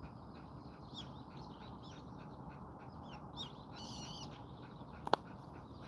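A Jindo dog panting quickly and regularly, about five breaths a second, with birds calling faintly, including one call near the middle. A single sharp click comes about five seconds in.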